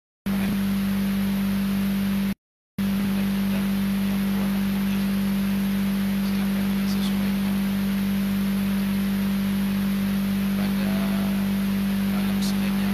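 A loud, steady low hum at one pitch with a hiss over it, cutting out to dead silence twice, briefly, near the start. It is a fault on the sound track that buries the lecture.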